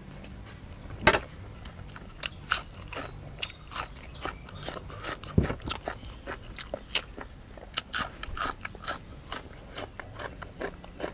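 Close-miked mouth sounds of a man chewing a meal of blanched beef shank and raw vegetables: a busy run of crisp crunchy clicks and wet smacks. The sharpest clicks come about a second in and again about halfway through.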